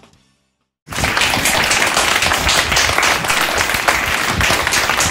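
Applause from many hands clapping, starting sharply about a second in after the last of a song fades away, and going on steadily.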